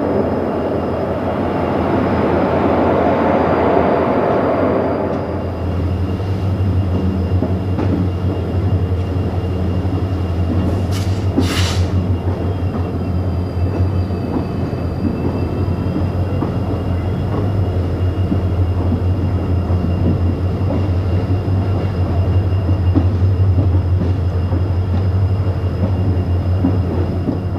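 Running noise of a diesel-hauled passenger train heard from aboard: a steady low rumble with wheel-on-rail rattle. A louder rushing noise fills the first five seconds or so, and a brief sharp clatter comes about eleven seconds in.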